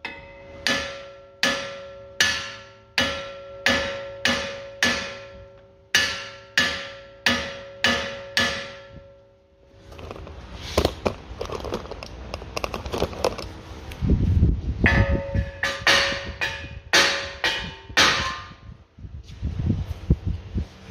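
Repeated hammer blows on a Seat León 2's front brake disc to free it from the hub: sharp, loud strikes about every two-thirds of a second, each leaving the steel disc ringing. Midway there is a spell of irregular knocking, then another run of ringing strikes.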